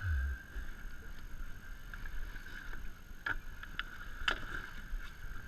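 Ambient noise aboard a small fishing boat: a steady low rumble with a constant high hum, and a few light clicks and knocks about three to four and a half seconds in.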